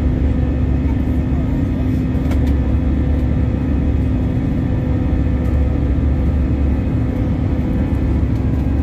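Steady airliner cabin noise during the climb after takeoff: the engines and rushing air give a low rumble with a steady hum under it.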